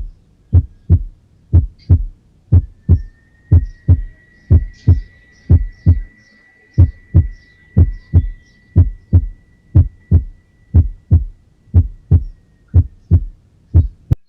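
Normal heart sounds heard through a stethoscope: a steady lub-dub rhythm of S1 and S2, each beat a pair of dull thumps. The sounds stop just before the end.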